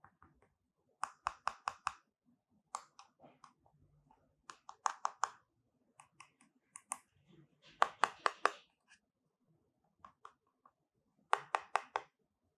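Fingers tapping and clicking on the casing of an ADATA SD600Q external SSD while handling it: sharp clicks in quick runs of four or five, repeated every second or two.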